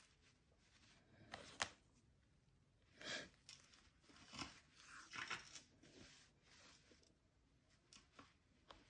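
Faint rustling of fabric and thread being drawn through it while a hat is stitched by hand: a few short swishes, with a sharp tick about one and a half seconds in.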